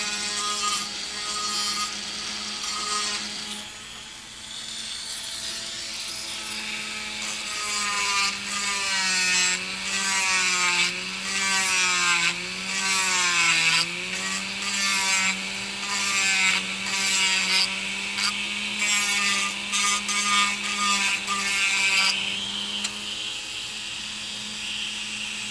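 Corded Dremel rotary tool running a barrel sanding drum, grinding a plastic model car body's wheel arch down even with resin flares. The motor hums at a steady pitch under the rasp of sanding, and its pitch sags and recovers several times midway as the drum is pressed into the work.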